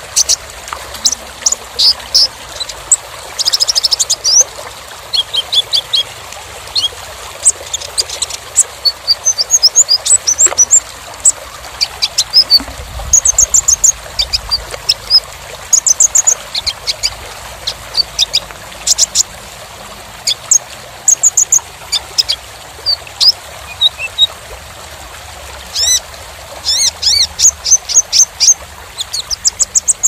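Van Hasselt's sunbird (kolibri ninja) singing: rapid runs of high, thin chirps and short trills with brief pauses between phrases, over a steady background hiss.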